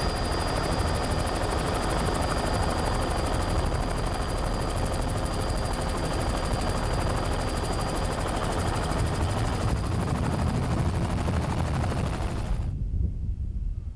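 Helicopter rotor beating steadily with a thin high whine, then cutting off abruptly near the end.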